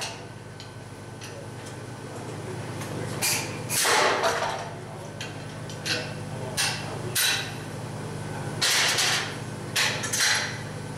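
Power hammer striking a hand-held top tool set on a red-hot steel strap over a bottom swedge: sharp metallic blows, singly and in short runs, beginning about three seconds in, over a steady low hum.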